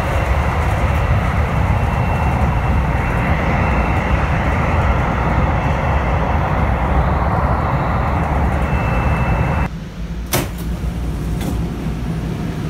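Steady rumble and hiss of a DART light-rail train running, heard from inside the car, with a faint steady high whine. About ten seconds in it cuts off abruptly to quieter ambience, and a sharp click follows.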